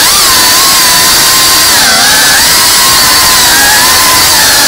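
FPV quadcopter's brushless motors and propellers whining loudly, heard from the onboard camera. The pitch holds steady and dips briefly about two seconds in as the throttle is eased and reapplied.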